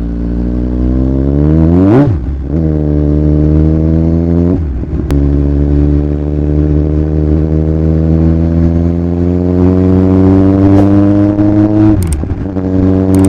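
Kawasaki Z1000's inline-four engine accelerating hard through the gears, its pitch climbing in each gear, with upshifts about two seconds in, about four and a half seconds in, and near the end.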